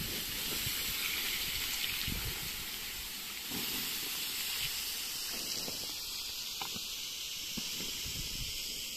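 Steady hiss with soft, irregular low rumbles underneath.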